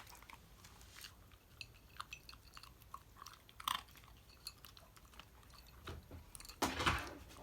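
Shiba Inu chewing and crunching its food: scattered soft crunches and clicks, with a louder burst of crunching near the end.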